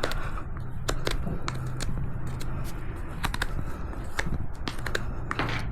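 Hoof knife paring a miniature horse's hoof: irregular short, crisp cuts and scrapes, over a low steady hum.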